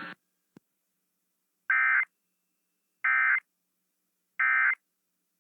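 Emergency Alert System end-of-message signal: three short bursts of digital data tones about a second and a half apart, marking the end of the alert.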